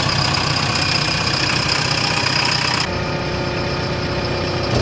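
Diesel engine idling steadily just after being started, with a light knock; the sound becomes a little quieter and less hissy about three seconds in.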